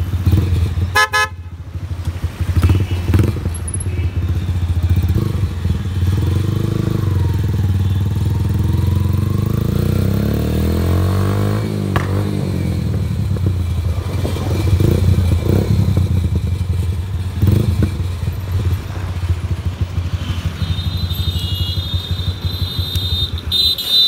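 Motorcycle being ridden on the road, its engine running steadily, with a short blast of its aftermarket Minda electric horn about a second in.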